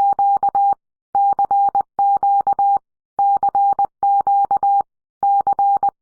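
Electronic emergency-alert tone: a single steady pitch beeping in rapid bursts of about four beeps, roughly one burst a second, with the bursts coming in pairs separated by slightly longer pauses.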